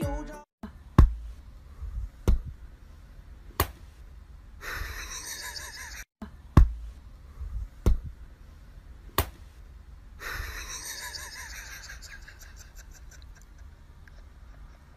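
A run of sharp knocks, about one every second and a quarter, with stretches of rustling noise in between.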